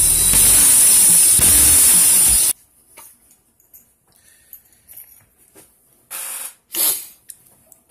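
Loud, steady mechanical whirring with a strong hiss, cut off abruptly about two and a half seconds in. After it come faint clicks and two short rustles of small metal vape parts being handled.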